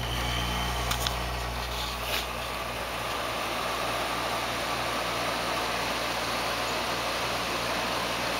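Vintage Montgomery Ward by Emerson 6100 BTU window air conditioner switched on at its lowest 'quiet' fan setting: it starts suddenly and runs with a steady low hum under a rush of air. A few light clicks in the first two seconds.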